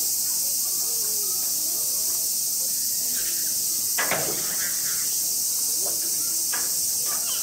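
Steady high-pitched chorus of cicadas, with faint voices underneath and a brief louder sound about four seconds in.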